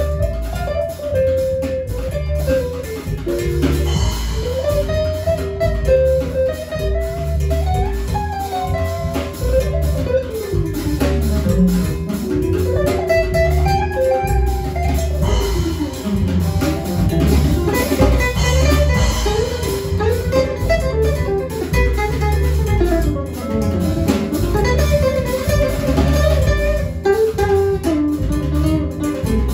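A small jazz band playing live: a guitar solo of fast runs sweeping up and down, over a walking upright bass and percussion.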